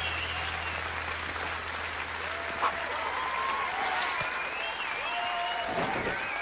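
Audience applauding and cheering, with shouts and whistles rising and falling over the clapping. A music track's low bass fades out in the first second or two.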